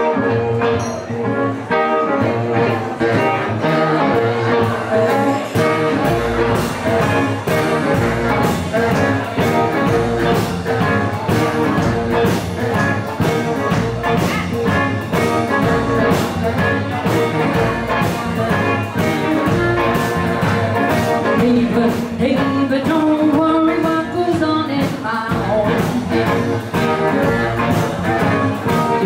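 Live band playing a song with electric and acoustic guitars, upright bass and drums, with singing. The music keeps a steady beat, and a low bass pulse comes in about six seconds in.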